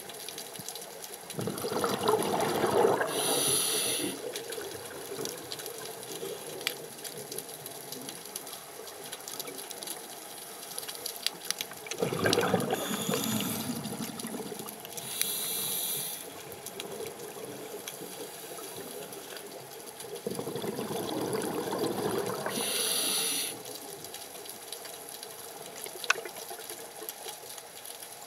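Scuba diver breathing through a regulator underwater: three breaths about nine seconds apart, each a bubbling rush of exhaled air followed by the short, high hiss of an inhale. Another exhale starts at the very end.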